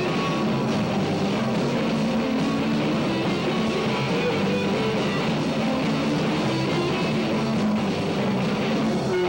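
A live rock band playing with guitars, a dense, unbroken sound heard through the room.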